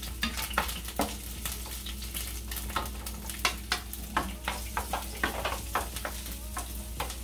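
Garlic and onion frying in hot oil in a pan, sizzling and being stirred, with many sharp crackles and scrapes at irregular intervals.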